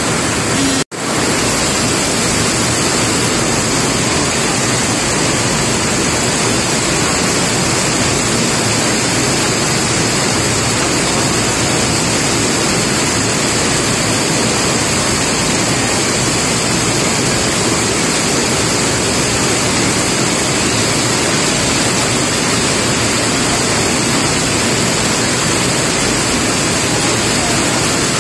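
Heavy rain falling in a steady, even hiss. The sound drops out for an instant about a second in, then carries on unchanged.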